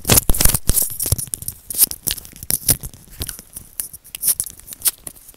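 ASMR hand sounds right up against a sensitive microphone: hands rubbing and pressing together, giving a dense run of irregular crackles and clicks that thin out in the second half.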